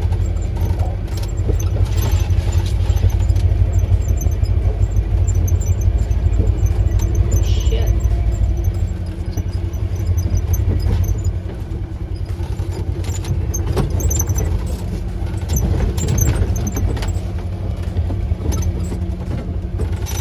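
Polaris side-by-side UTV engine running steadily while driving a rough trail, with scattered knocks and rattles from the vehicle over the terrain.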